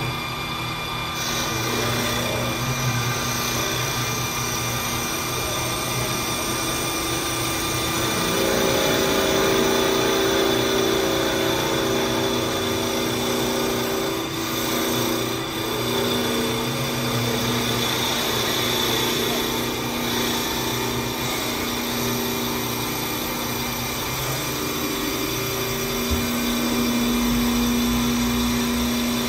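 CNC wood lathe machining a spinning wooden workpiece, its cutter and router spindle shaving the wood. A steady machining noise with a motor whine whose pitch shifts a few times as the cut changes.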